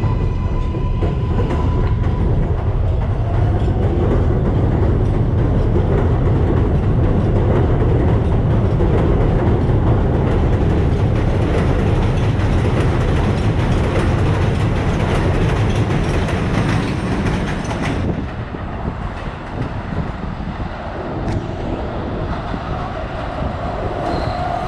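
R188 subway train pulling out of the station: its traction motors whine up in pitch as it gathers speed over a steady rumble and clatter of wheels on rail. The sound drops off sharply about 18 seconds in, leaving a quieter rumble.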